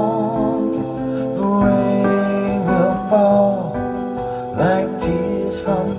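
Acoustic guitar ballad music, sustained chords under a wavering melody line, played back through speakers.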